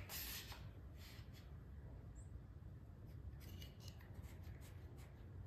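Faint clicks and light scraping of a one-handed bar clamp being handled and set across a wooden tray, spread through several seconds over a low background hum.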